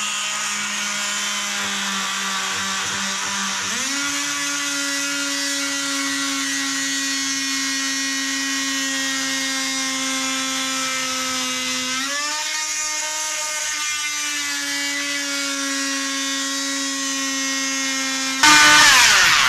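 Handheld corded power tool cutting into a wooden boat hull's planking, its motor giving a steady whine that steps up in pitch about four seconds in and rises briefly again around twelve seconds. Near the end a louder, noisier sound takes over.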